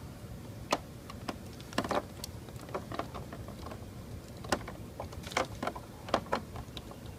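Irregular light clicks and taps of hands working a soft rubber headlight dust cover off the back of a motorcycle headlight housing, fingers knocking against plastic.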